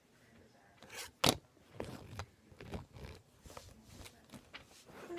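Handling noise as a plastic toy monster truck is turned over and moved about: a sharp knock a little over a second in, then scattered clicks and scrapes.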